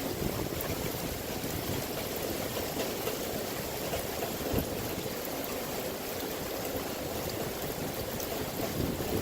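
Heavy thunderstorm rain pouring down, with flash-flood runoff water rushing in a steady, even wash of sound.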